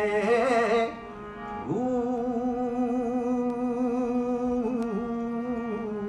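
A man singing a Punjabi Sufi melody to his own harmonium accompaniment. A sung phrase ends about a second in, and after a brief dip he holds one long, slightly wavering note over the harmonium's sustained reeds.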